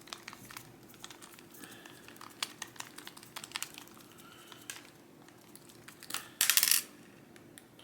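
Small metallic clicks and ticks of a screwdriver and lock parts as the screws in the back of a lock are worked loose, with one brief louder scrape about six and a half seconds in.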